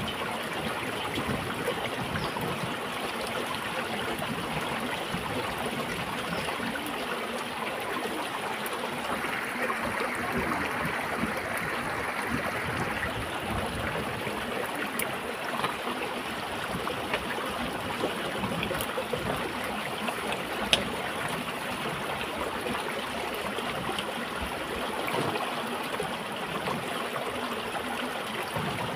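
Shallow stream water running steadily, with one sharp click about two-thirds of the way through.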